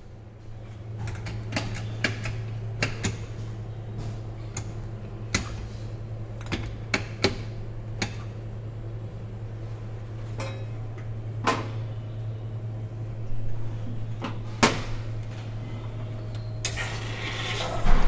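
Scattered clicks and light metal knocks of a portafilter and coffee tools being handled at an espresso grinder, over a steady low hum. A short hiss comes near the end.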